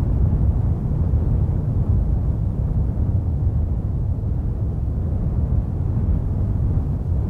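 A steady, deep rumble with no distinct bangs or breaks.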